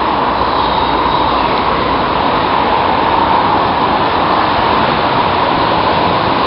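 Steady rushing noise of road traffic on a busy avenue, heard from a moving bicycle.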